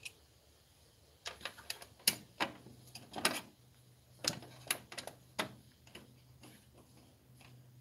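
Irregular light clicks and taps of screws and a screwdriver being handled against the sheet-metal chassis and plastic bracket of an opened flat-screen TV. They start about a second in and thin out near the end.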